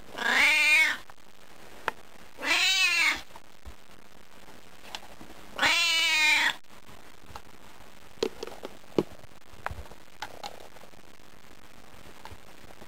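Tortoiseshell cat meowing three times, each meow about a second long and rising then falling in pitch, begging for food. A few light clicks and taps follow.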